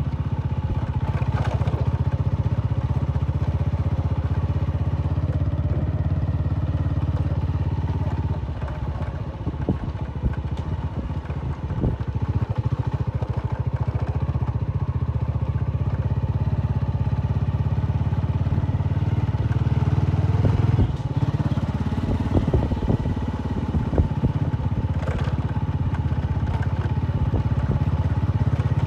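Honda motorcycle engine running steadily while the bike is ridden, with a quieter stretch and a few knocks and rattles around nine to twelve seconds in, and more knocks with a brief rise around twenty seconds in.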